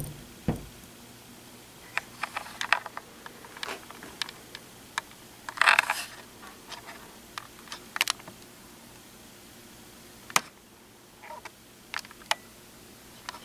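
Handling noise: scattered light clicks and taps, with a short rustle about six seconds in.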